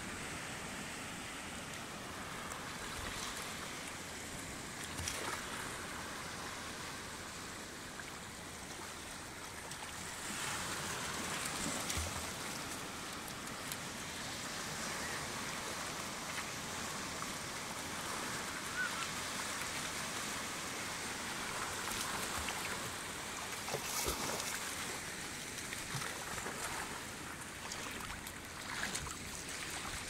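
Small waves breaking and sea water washing over a shallow, rocky shoreline: a steady rushing hiss that grows a little louder about ten seconds in, with a few brief sharp sounds.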